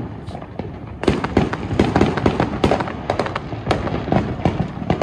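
Fireworks going off in a rapid string of bangs and crackling pops, sparse at first and coming thick and fast from about a second in.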